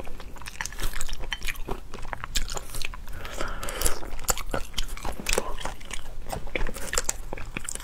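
Close-miked eating of boiled crayfish: shells cracking and crackling as they are pulled apart by hand, with chewing between. Irregular crackles come in quick clusters.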